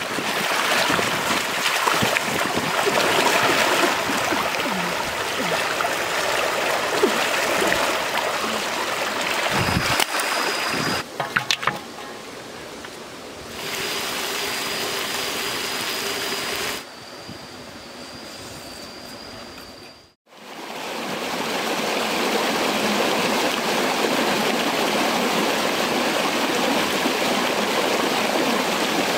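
A string of short, different noisy clips that changes abruptly several times and drops out briefly about twenty seconds in. Then a shallow rocky forest stream runs steadily for the last eight seconds or so.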